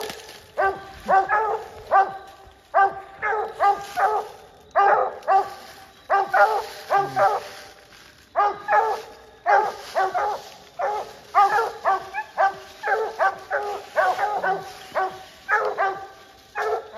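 Coonhounds barking treed at the foot of the tree: rapid barks, about two to three a second in runs with short breaks. The treed bark is the sign that the dogs have a raccoon up the tree.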